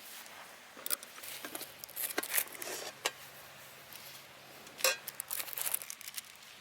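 Small clicks, taps and rustling of objects being handled at close range, with a few sharper clicks, one of them about three seconds in.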